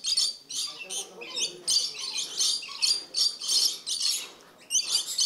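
Caged red-and-blue lories screeching: harsh, high calls, several a second, one after another, with a short lull near the end.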